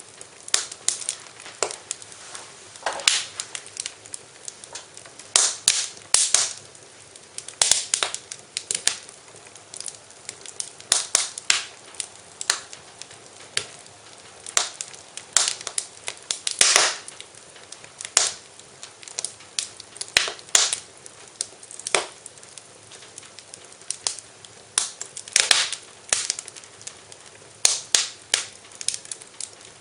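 Wood fire in a fireplace crackling, with irregular sharp pops and snaps over a low steady hiss.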